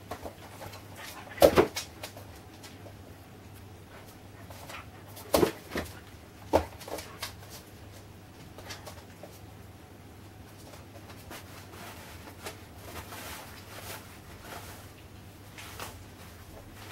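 A puppy's paws and claws clicking and knocking on a laminate floor as it plays with a soft toy, with a few louder knocks, the loudest about a second and a half in and a cluster around five to six and a half seconds in.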